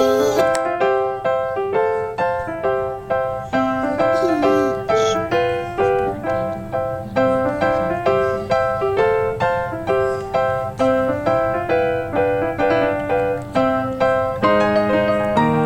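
Background music: a light piano or electric-piano melody of evenly spaced notes, with lower chords coming in near the end.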